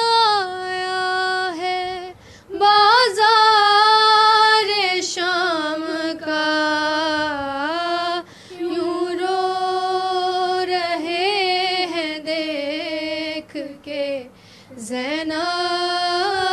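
Young women's voices singing a noha, a Muharram lament, in unison in long, wavering held notes, with brief breaks for breath.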